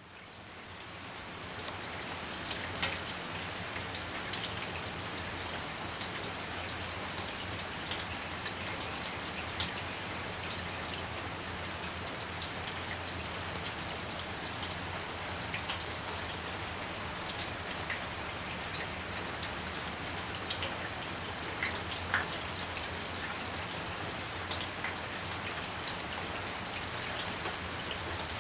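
Steady rain falling, an even hiss with individual drops tapping clearly here and there. It fades in over the first couple of seconds.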